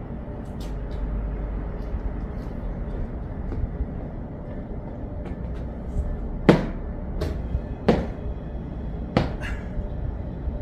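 Steady low rumble with a handful of sharp knocks in the second half, the loudest three more than a second apart.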